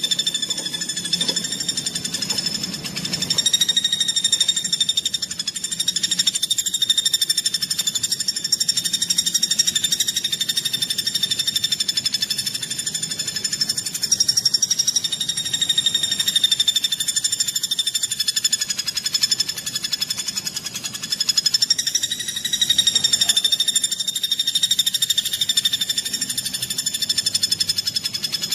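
A songbird's rapid, unbroken trill held at a near-steady pitch with small wavers, played as a masteran recording for training caged songbirds.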